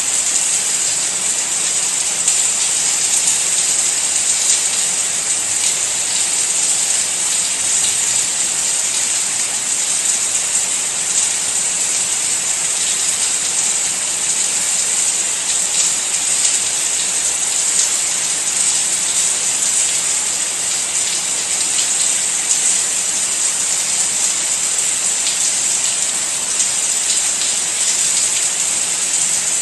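Steady rain falling, a continuous even hiss that stays at the same level throughout.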